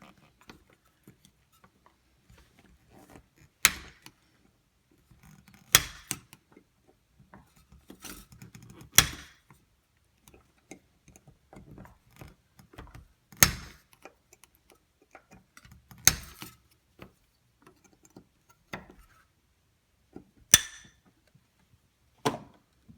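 Sharp metallic clicks and knocks, about nine spaced irregularly a few seconds apart, with faint handling noise between them: hand tools working on a deadbolt lock.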